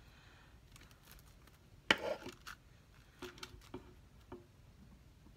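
Scissors cutting glitter ribbon: one louder knock about two seconds in, then a few light snips and clicks.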